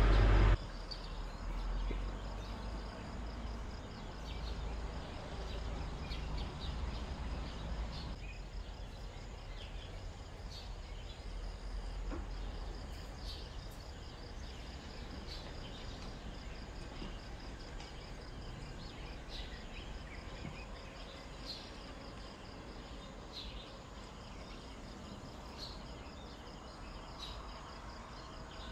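Outdoor ambience: a steady low background noise with faint, scattered short high chirps, like crickets. A louder steady noise stops abruptly about half a second in.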